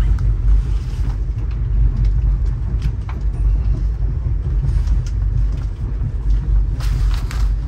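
Steady low rumble of a Budd-built stainless steel passenger coach rolling on the rails, heard from inside the car. Faint clicks and rattles come every second or two, with a short brighter clatter near the end.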